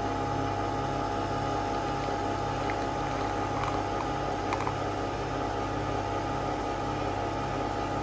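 Nespresso capsule coffee machine running as it brews a cup: a steady mechanical hum with a slow, regular pulsing, and a few faint clicks in the middle.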